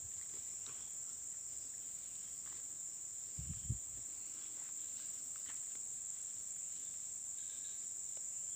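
Insects droning in one steady, high-pitched shrill, with a couple of soft low thumps about three and a half seconds in.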